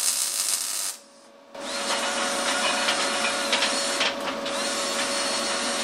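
About a second of welding-arc crackle. After a short break, a cordless drill spins a wire wheel over fresh welds: a steady motor whine under a hiss from the bristles on the metal, easing off briefly about four seconds in.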